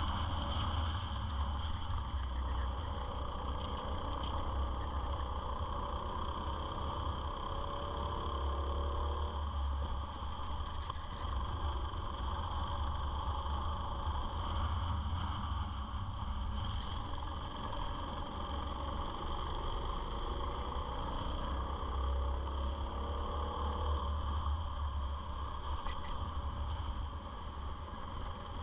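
Onboard sound of a racing go-kart's engine running hard through laps, its pitch rising and falling as the driver accelerates out of corners, over a steady low rumble.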